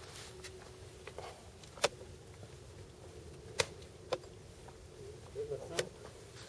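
Four sharp, short clicks spread across a few seconds, with faint talking near the end.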